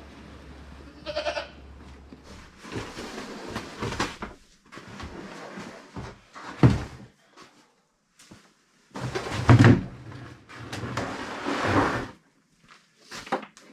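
A goat bleats once, a short pitched cry about a second in, followed by several louder, rough bursts of sound, some with low thuds.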